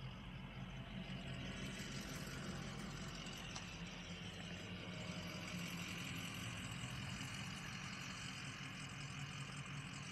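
Ford Powerstroke diesel V8 in a lifted Super Duty pickup running at low speed, a steady low rumble.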